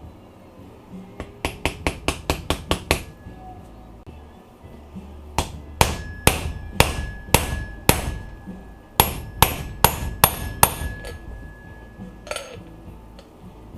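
Hammer striking a metal bearing race driver to drive a bushing into a 4L80E transmission part: three bursts of quick taps, with a faint metallic ring carrying between strikes.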